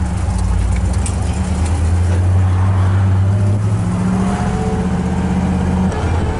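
1967 Pontiac Grand Prix's 400 cubic-inch V8 running under way, heard from inside the cabin with road noise. The engine note holds steady, its pitch shifts slightly about four seconds in, and it dips briefly near the end.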